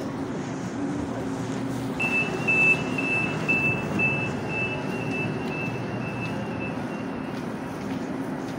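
Light-rail train pulling out of a station platform with a steady low motor hum. About two seconds in, a high electronic warning tone starts beeping about twice a second and runs for about five seconds.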